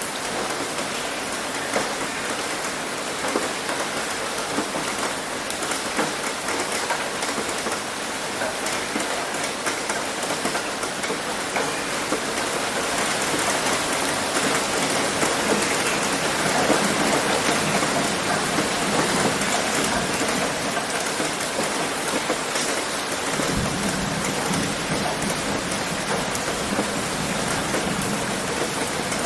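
Heavy rain hitting a roof: a dense, steady patter of drops that grows a little louder in the middle. A low rumble comes in near the end.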